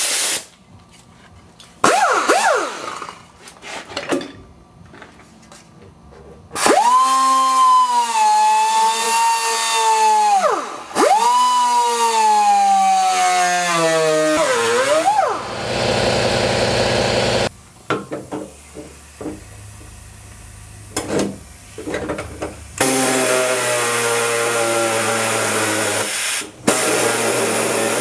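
Pneumatic air grinder cutting into rusted fender sheet steel in bursts: a high whine that sags in pitch as it bites and winds down when released, twice in a row about seven seconds in. A second stretch of steady air-tool running follows over the last five seconds.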